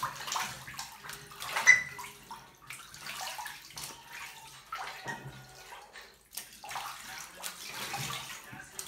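A white domestic duck bathing in a bathtub of water: irregular splashing and sloshing as it dips its head under and shakes, with one loud splash just under two seconds in.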